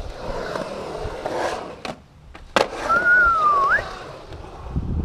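Skateboard wheels rolling on the concrete of a skate-park bowl, with a loud sharp clack of the board about two and a half seconds in. Just after it comes a short thin whistle that dips slightly and then rises at the end.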